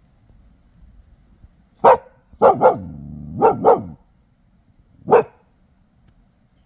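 A dog barking: one bark, then a quick run of four barks in two pairs, and one more bark near the end.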